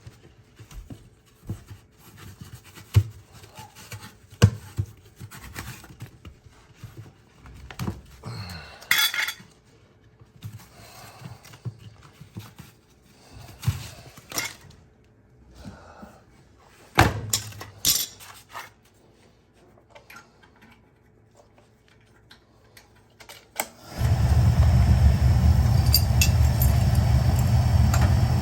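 Scattered clinks and knocks of tools and loose pieces of the broken combustion chamber being handled inside an oil-fired boiler. Near the end the oil burner lights and runs with a steady low rumble.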